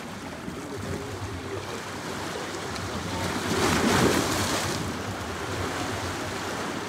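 Sea waves washing ashore, a steady wash with one wave swelling and fading about four seconds in.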